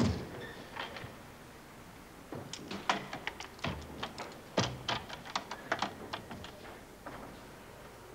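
A thud, then a quick, irregular run of knocks and clacks with a couple of heavier thuds, from stage equipment such as drums, stands and cases being handled during setup.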